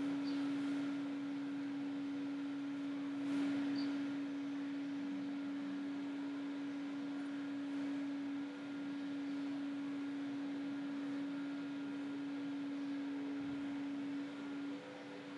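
Steady low hum: one unchanging tone over faint hiss.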